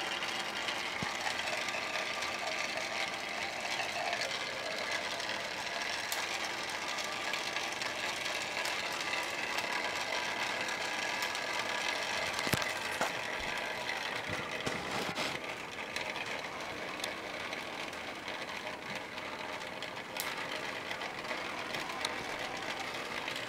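Water drops from the nozzles of a Kelvin water dropper falling into water-filled foil pie tins in a steady, rapid patter, with a few sharper clicks. The sound of the drops shifts as the charge builds, and it goes back to normal each time the hanging foil rings touch and discharge.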